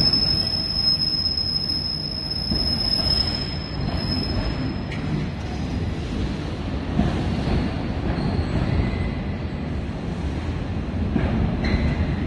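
Container freight train wagons rolling past with a steady rumble of wheels on rail. A high steady squeal sounds through the first four seconds or so, and fainter squeals return near the end.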